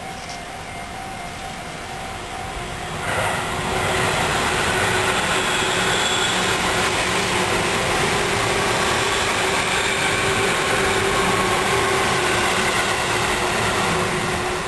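A faint steady tone, then about three seconds in a loud, steady rushing mechanical noise with a faint hum in it comes up and holds until near the end.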